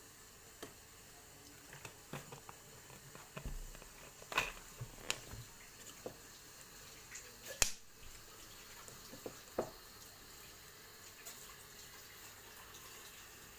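Scattered light clicks and knocks of small objects being handled, about a dozen in all, the loudest about four seconds and seven and a half seconds in, over a faint steady hiss.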